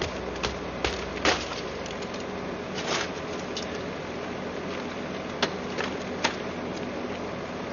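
Scattered knocks and clatters of flood debris being handled, over a steady background noise. The sharpest knock comes a little over a second in.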